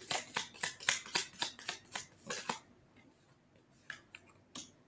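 A deck of tarot cards being shuffled in the hands: a quick run of card clicks, about five a second, that stops about two and a half seconds in. A few single light clicks follow near the end as a card is drawn from the deck.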